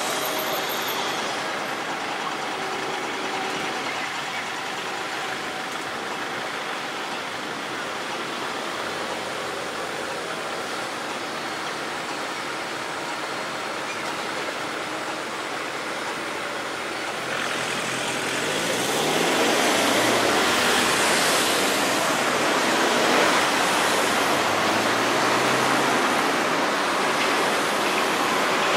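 Liebherr R 936 Litronic hydraulic crawler excavator working, its diesel engine and hydraulics running steadily. It gets louder and brighter about two-thirds of the way through, with the engine note stepping up and down as the machine works.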